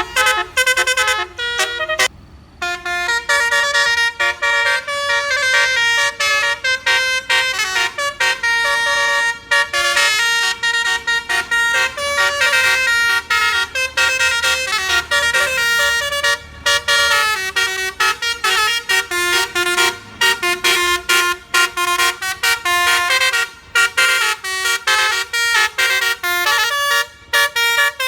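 Indonesian bus 'telolet basuri' musical air horn playing a fast tune of short, stepping notes, one phrase after another, with a brief break about two seconds in.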